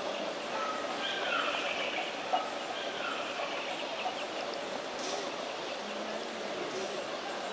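Outdoor ambience: birds calling in short chirps and glides over a steady background hiss, with one sharp click about two seconds in.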